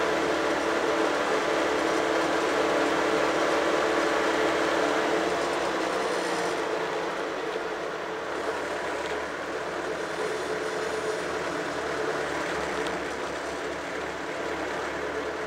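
Tractor engine running steadily while driving along, heard from right behind its upright exhaust stack; the engine note eases slightly about six seconds in.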